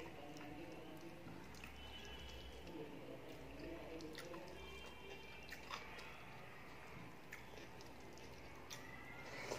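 Faint chewing, with the soft squish of fingers mixing rice and dal on a metal plate. Light clicks come every second or so.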